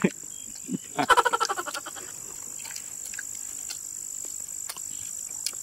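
Steady high-pitched drone of insects, with one short, rapidly pulsing animal call about a second in that falls slightly in pitch.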